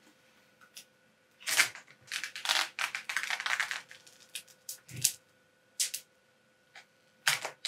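Protective plastic film being peeled off a PC case's glass side panel: the film crackles and rustles in a dense stretch from about one and a half to four seconds in, then gives a few separate crackles.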